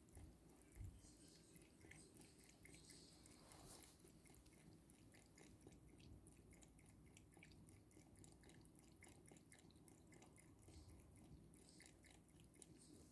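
A cat lapping water from a bowl: faint, quick, steady licking ticks.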